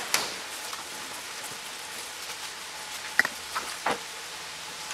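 A few light knocks and clicks from hands working parts inside the grille opening of a car, over a steady hiss. The clicks come just after the start and three times between about 3 and 4 seconds in.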